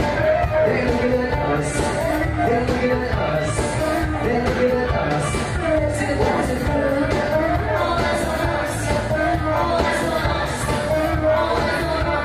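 Live cover band playing a pop-rock song, singers over drums, electric guitar and keyboard, loud and reverberant in a large room.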